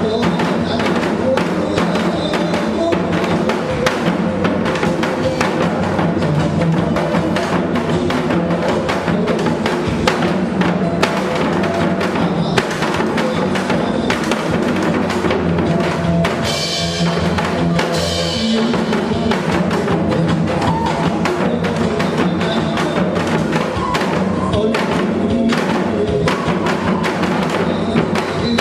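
Janggu, Korean hourglass drums, played in a fast, steady rhythm of sharp strokes over a pitched music accompaniment.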